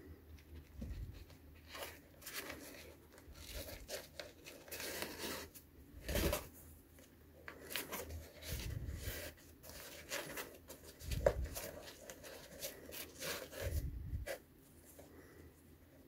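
Hands threading and pulling flat shoelaces through the eyelets and under the tongue of a leather sneaker: scattered rustling and scraping of lace against leather, with a few soft low thumps as the shoe is handled.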